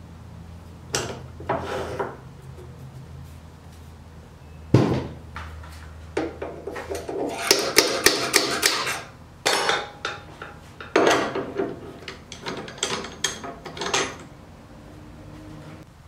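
Metal lathe parts being handled: clinks, knocks and clatter as the spur drive centre is taken out of the headstock and a scroll chuck is fitted. A sharp knock about five seconds in is the loudest, and a low hum stops about seven seconds in.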